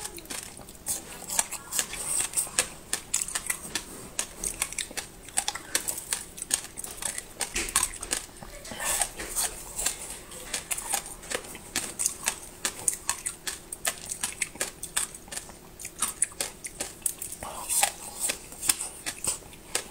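Chewing and crunching of frozen sweet ice sticks, a dense run of crisp crackles and clicks with many per second.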